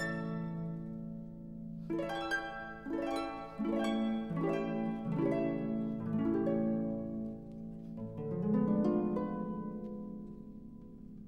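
Slow background music: plucked notes that ring out and fade, several at a time, over held low notes.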